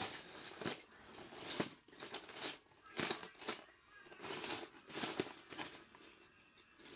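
Plastic Lego bricks clattering and rustling as they are pushed aside and rummaged through by hand, in a run of short, irregular clicks.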